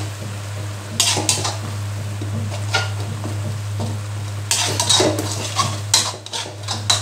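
Metal stirring utensil scraping and clinking against the inside of a wok as a thin chili-garlic sauce is stirred. There is a short group of strokes about a second in, then quicker, more frequent strokes from about four and a half seconds on.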